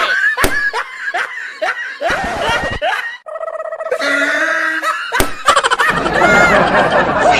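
Human laughter, snickering and chuckling in short bursts, with one sharp crack about five seconds in.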